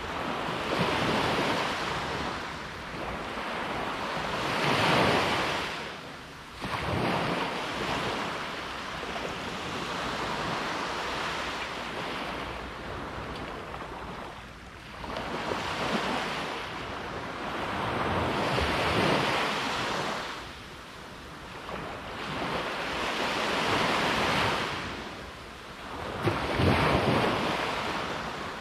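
Caribbean Sea surf: waves breaking and washing up in a continuous rush that swells and falls away every four seconds or so.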